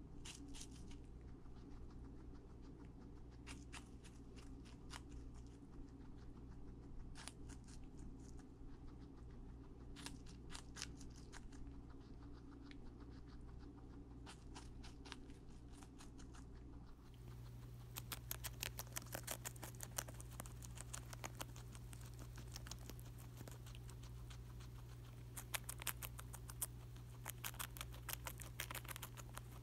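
A guinea pig chewing and crunching crisp food in quick sharp clicks: apple first, then, from about halfway, romaine lettuce, with denser runs of crunching.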